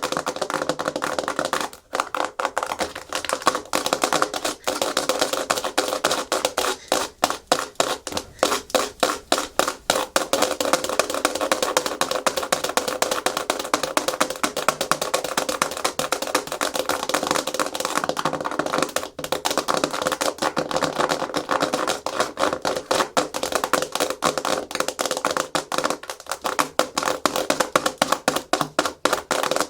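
Natural fingernails tapping fast and hard on a hard plastic surface: a dense run of rapid clicks with a few brief breaks.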